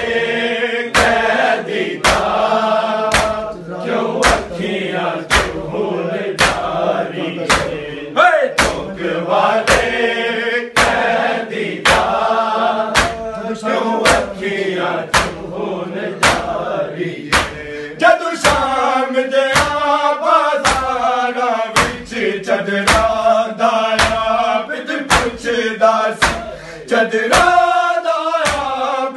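Men's group matam: bare-handed chest-beating in unison, sharp slaps in a steady, even rhythm, over a male lead and group chanting a noha.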